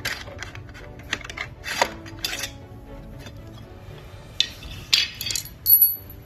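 Sharp metal clicks and clinks as the steel pivot pin is worked out of an electric unicycle's pedal hinge, a busier cluster late on and a short high metallic ring near the end. Background music plays underneath.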